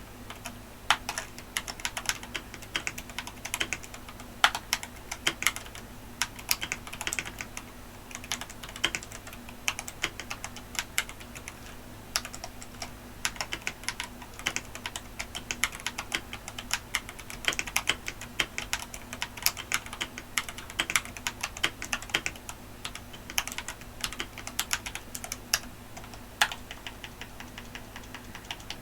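Mechanical keyboard with Ajazz Diced Fruit Banana tactile switches being typed on continuously: an irregular run of crisp keystroke clicks, with a mid-range clack as each key bottoms out.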